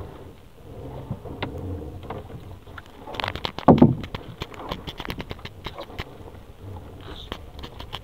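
Crackling and rustling of gloved hands pulling at a nylon gill net on a plastic sheet, many small clicks, with one loud thump about three and a half seconds in.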